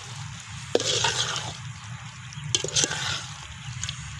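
Thick quail pepper gravy in a pot, worked with a ladle at the end of cooking: wet sloshing and bubbling, with a few sharp clicks of the ladle against the pot.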